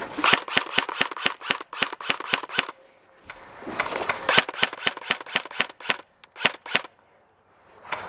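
Airsoft guns firing rapid strings of shots, about seven a second, in two long runs with a short break about three seconds in, then a few single shots before they stop.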